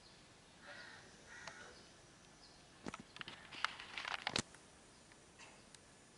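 A crow cawing a couple of times, then a run of light clicks and knocks, the sharpest about four seconds in.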